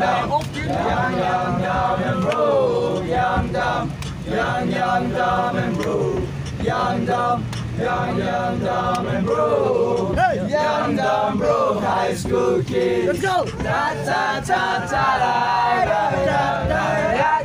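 A group of young men singing a chant together in unison, loud and continuous, inside a moving bus with a steady low hum underneath.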